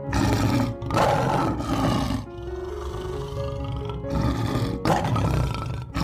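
Lion roaring in several rough, noisy blasts, with a quieter stretch in the middle, over soft background music.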